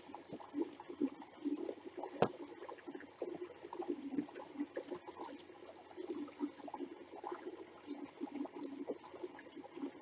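Small creek trickling and gurgling over rocks, an irregular steady patter of water, with one sharp click about two seconds in.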